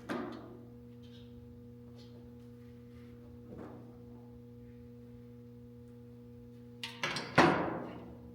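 Parts of a vinyl cutter stand being handled during assembly: a knock at the start, a softer one a few seconds later, and a cluster of louder clunks near the end that ring out briefly, over a steady low hum.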